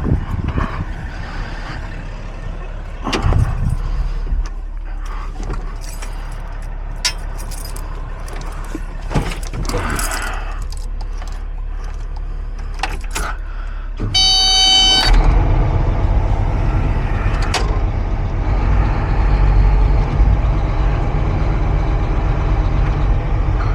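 Caterpillar 349 excavator's diesel engine running low with scattered clanks and knocks, then a one-second beep about 14 seconds in, after which the engine comes up to a louder, steady run.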